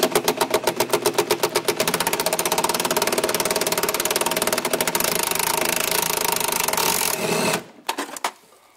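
Cordless DeWalt impact driver hammering on a bolt through a socket extension. It starts with spaced blows, quickly builds to a fast continuous rattle at full speed, then stops abruptly about seven and a half seconds in.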